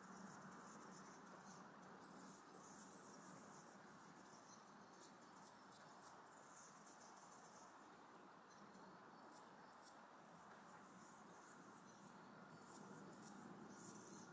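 Near silence: faint background hiss with scattered, very high-pitched squeaks and chirps throughout.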